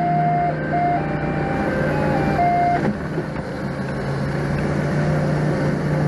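Doosan 4.5-tonne forklift's engine running steadily while the forklift backs up. Its reversing alarm plays a short tune of single tones over the first three seconds.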